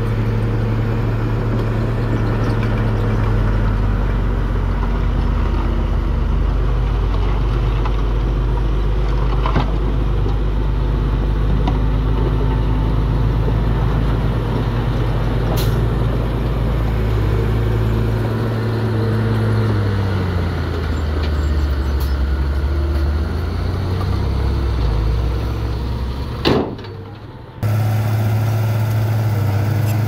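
Dump truck's diesel engine running under load as the hydraulic hoist tips the bed and rock spills out, its note falling away about two-thirds through. Near the end it changes to a crawler bulldozer's diesel engine running steadily.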